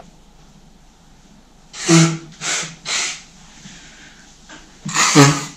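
A man with a cold making short, sharp breathy bursts from the nose and throat: three close together about two seconds in, then a louder one near the end.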